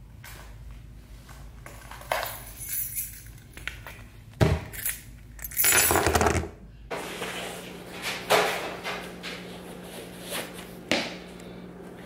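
Small objects being handled and set down on a hard surface: a series of knocks, clunks and rustles, the loudest about four and a half and six seconds in.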